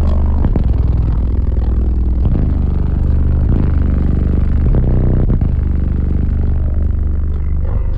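Four 15-inch car-audio subwoofers in a sixth-order enclosure playing music at high volume: a deep, heavy bass line with regular beat hits that outweighs everything else.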